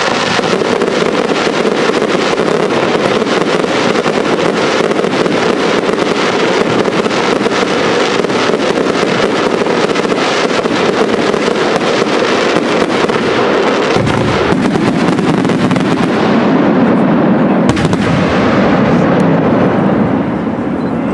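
A fireworks display: a dense, continuous crackle of many small pops and bursts, with a single sharper bang late on.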